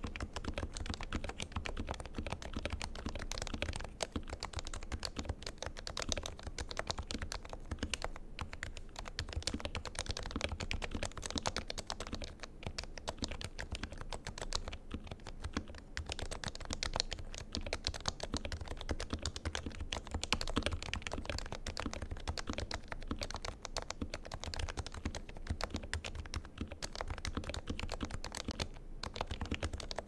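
Continuous fast typing on an HHKB Professional 2 with Topre electro-capacitive switches, lubed with Krytox 205g2 and with Permatex-lubed stabilisers: a dense, unbroken stream of keystrokes.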